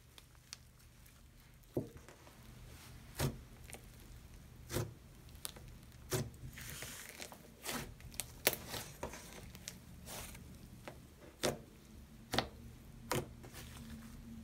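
Thick puff-texture slime being pressed, stretched and poked by hand, giving irregular sharp pops and clicks, about a dozen of them, over a faint steady low hum.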